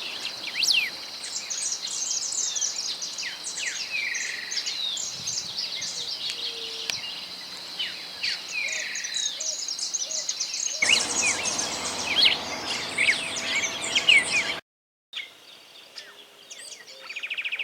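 Recorded songs of the ultramarine grosbeak (reinamora grande): a busy run of chirps and whistled notes against a chorus of other birds. The recording changes abruptly about eleven seconds in and cuts out for a moment near fifteen seconds before a quieter stretch.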